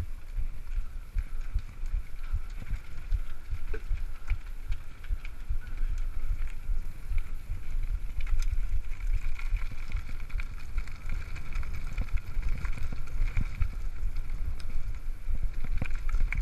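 Mountain bike ridden fast over a rough gravel and dirt track: a steady rumble of the tyres with the bike rattling over bumps in many short knocks, and wind buffeting the microphone.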